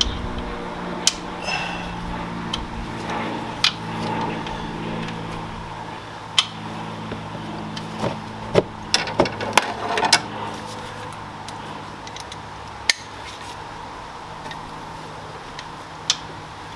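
Hand tools clinking and knocking on metal while bolts are fastened under a car: about a dozen sharp hits spread apart, several close together a little past the middle. A steady low hum runs behind them.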